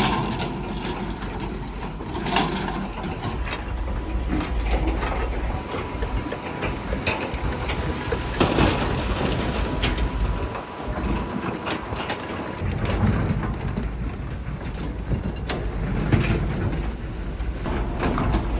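Diesel engine of heavy construction machinery running with a low rumble, with scattered knocks and clanks.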